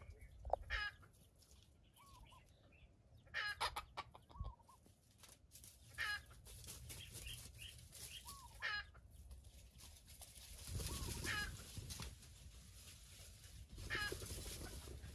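Chicken clucking: a short call every two and a half seconds or so, with softer, lower clucks between them. A brief burst of noise comes about two-thirds of the way through.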